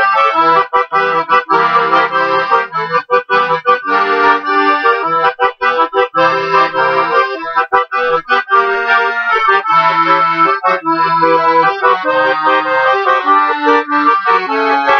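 Piano accordion playing an instrumental passage: a melody and chords over a bass line, in short, choppy phrases.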